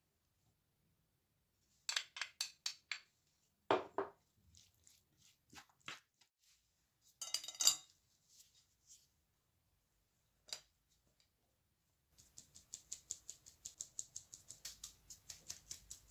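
Kitchen handling sounds of a metal mesh sieve and a glass bowl: scattered clicks, a knock and a short rattle. In the last few seconds comes a fast, even run of light taps, about five a second, as flour is shaken through the sieve.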